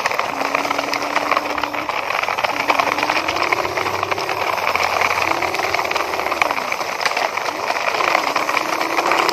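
Plastic toy dump truck loaded with soil being pushed over gritty dirt, its wheels rolling and grinding in a steady crackling rattle. A low wavering tone rises and falls several times over it.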